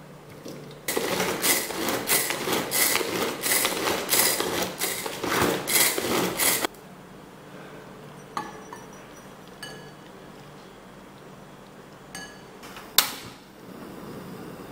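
Small food chopper blending cauliflower: the blade whirls the pieces against the bowl in a loud, busy rattle that starts about a second in and stops abruptly after about six seconds. A few light clinks of a spoon against the bowl follow, then a single sharp click near the end.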